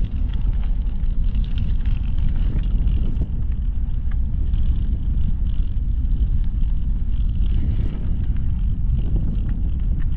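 Steady low rumble of a bicycle rolling along a gravel towpath, mostly wind buffeting the microphone mixed with tyre noise on the loose surface.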